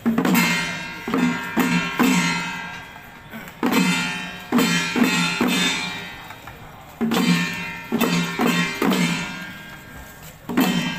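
Taiwanese temple ritual-troupe percussion: struck drum and ringing strokes in irregular groups of two or three, each stroke ringing on and fading away.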